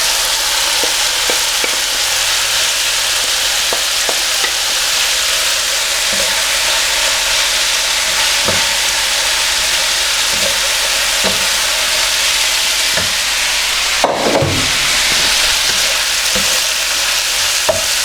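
Chicken and vegetables sizzling in hot oil in a wok, with a steady hiss and scattered scrapes and knocks of a utensil stirring and tossing them, one sharper clatter near the end.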